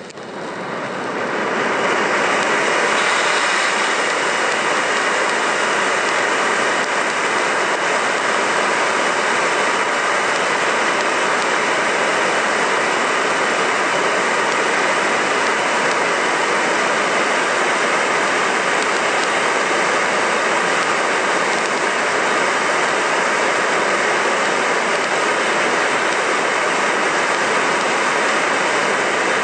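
Silver stage fountain firework burning with a loud, steady hiss as it sprays sparks, building up over the first two seconds after it catches.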